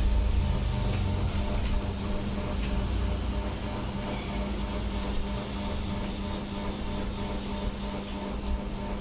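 A steady low rumble with a constant hum, with no clear separate events.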